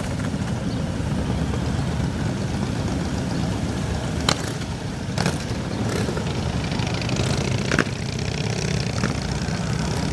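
Motorcycle engines idling together, a steady low running sound. Two short sharp clicks or knocks cut through, about four and eight seconds in.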